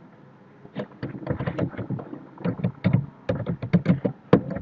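Typing on a computer keyboard: a quick, uneven run of key clicks starting about a second in.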